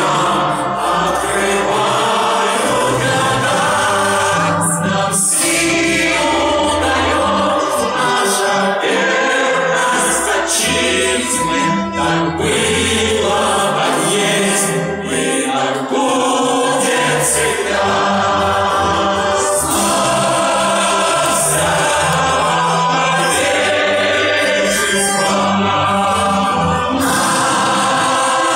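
Music: a choir singing held notes over instrumental backing with a low bass line, continuous and loud.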